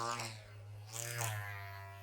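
Background music: a steady low drone with two short sliding tones over it, one near the start and one about a second in.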